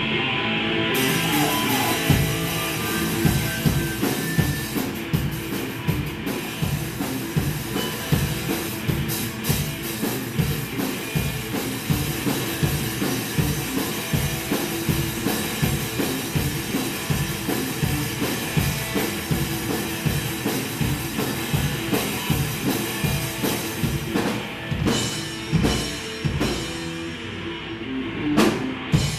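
A live rock band playing an instrumental passage: a drum kit keeps a steady, fast beat with the bass drum under electric guitars. The band thins out briefly near the end, then comes back in full.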